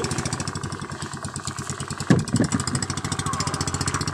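Small boat engine idling with a fast, steady putter. Two thumps come about two seconds in.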